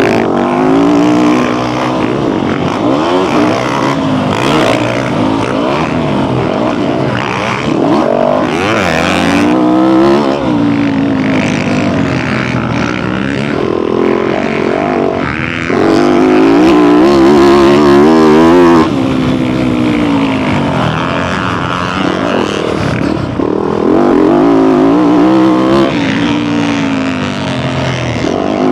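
Motocross dirt bike engine heard from on board while being ridden, revving up and dropping back over and over as the rider accelerates and backs off.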